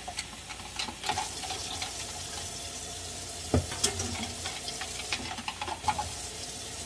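Beef strips sizzling in a hot skillet in their own juices: a steady frying hiss with scattered sharp pops and crackles.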